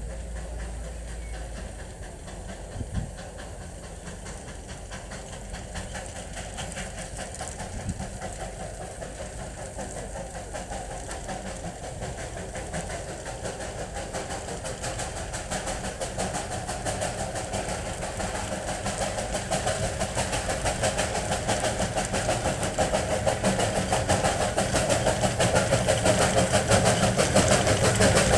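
Narrow-gauge steam locomotive running on the line and drawing closer, growing steadily louder, with rapid regular beats and hiss that become strongest near the end.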